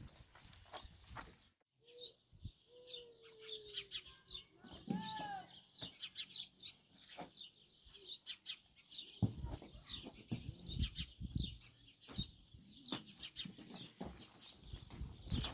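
Small birds chirping over and over, with a couple of lower gliding calls a few seconds in. In the second half, several knocks and thuds, the loudest sounds here.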